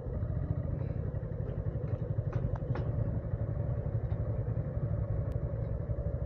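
Sport motorcycle engine running steadily at low speed, a dense low rumble, with a few short clicks about two and a half seconds in.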